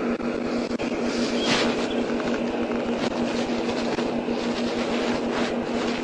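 Steady hum of a running vehicle engine at an even pitch, under a constant rumbling noise.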